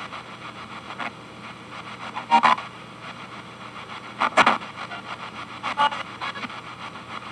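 P-SB7 spirit box sweeping FM stations, played through a small Esteban G-10 guitar amp. A steady hiss of radio static is broken every second or two by short, loud bursts of sound as the sweep crosses stations.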